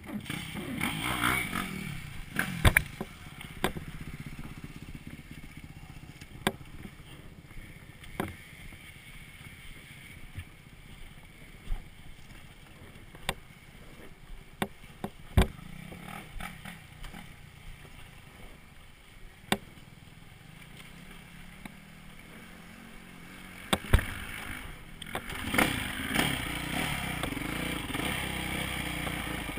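Yamaha dirt bike engine running at low revs, with scattered sharp knocks and clatter from the bike jolting over the rough trail. Near the end the engine revs up louder.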